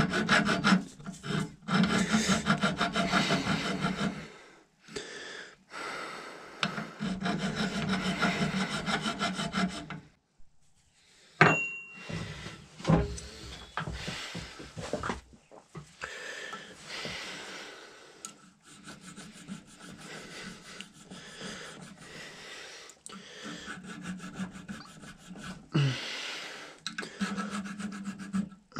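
Hand file strokes on the steel muzzleloader barrel, filing the edge of a fitted dovetail lug flush with the barrel. Two long runs of rapid strokes come first; after a short pause with one sharp click about midway, the filing goes on lighter.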